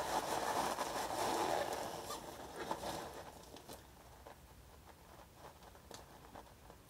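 Rustling of edible packing filler and packaging as hands dig through a parcel. It dies down after about three seconds to a few faint clicks and taps.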